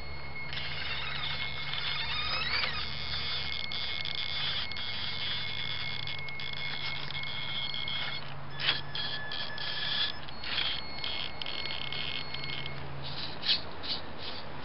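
Radio-controlled scale truck's electric drive whining at a steady high pitch as it crawls through thick mud, the whine changing pitch with the throttle, with a few sharp clicks near the end.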